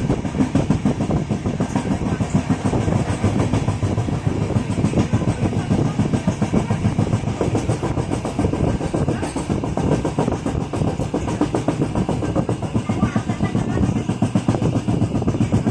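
Train running at speed, heard from inside a passenger carriage: a steady rumble with a rapid, continuous clatter of wheels over the rails.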